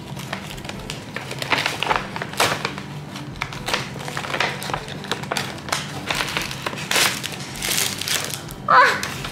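Kraft-paper gift bag rustling and crinkling in irregular bursts as hands dig into it and draw out a plastic-wrapped spiral notebook. A woman gives a short exclamation near the end.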